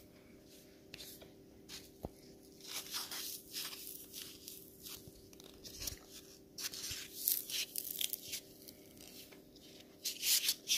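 Irregular bursts of dry crinkling and crackling noise from handling, loudest near the end, over a faint steady low hum.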